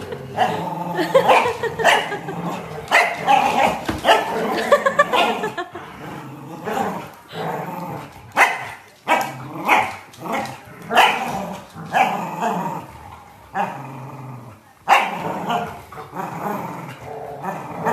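Two dogs, a large black dog and a corgi, growling and barking while playing tug-of-war over a toy. Near-continuous growling for the first few seconds gives way to a string of short, sharp barks.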